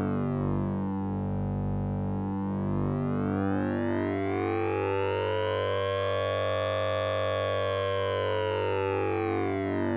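Synthesized 'Sync'n'Ring' tone from the Orange Vocoder plugin: a steady low electronic drone with a dense, metallic-sounding band of overtones that sweeps slowly down, then up to a peak about seven seconds in, and begins to fall again near the end, like a slow siren.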